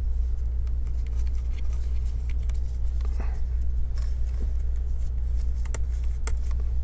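Steady low electrical hum, with scattered small clicks of laptop cables and connectors being handled.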